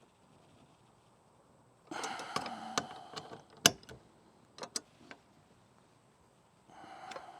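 Socket wrench working a 1/2-inch bolt on metal hardware: a stretch of rapid ratcheting about two seconds in and again near the end, with several sharp metal clicks and clinks between.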